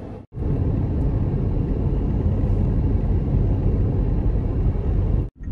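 A car driving, heard from inside the cabin: a loud, steady low rumble of road and wind noise. It cuts in abruptly just after the start and cuts off abruptly just before the end.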